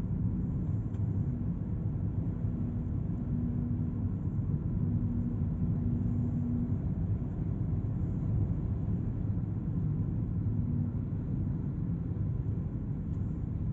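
Camper van driving at steady speed: a constant low rumble of engine and road noise, with a faint hum rising above it for a few seconds near the start.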